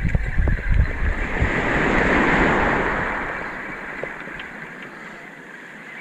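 Surf washing up a pebble beach: a hiss that swells about two seconds in and then slowly fades. Wind buffets the microphone at the start.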